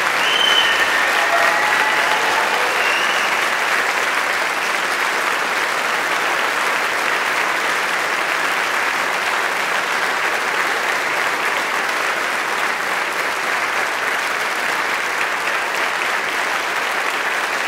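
Large audience applauding steadily, with a few cheers near the start.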